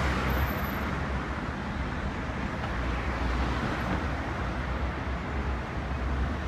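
Road traffic: cars driving up out of an underpass, a steady low hum of engines and tyres.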